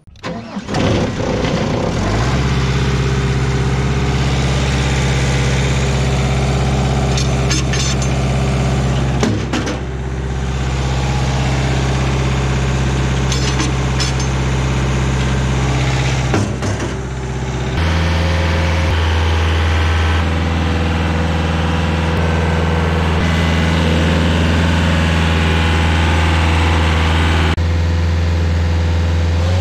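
Rayco RG50 stump grinder's engine starting, then running steadily at a constant speed, with brief dips in level about a third and halfway through.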